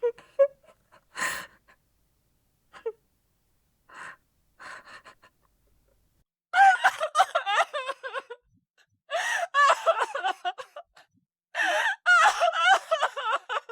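A woman crying: short, scattered gasping breaths and small sobs at first, then about six seconds in she breaks into intense, wailing sobs that come in three long bursts with brief catches of breath between them.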